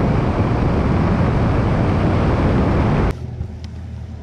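Loud rushing wind noise on the microphone over a boat's running motor, cutting off suddenly about three seconds in. What remains is a quieter low, steady motor hum with a few light clicks.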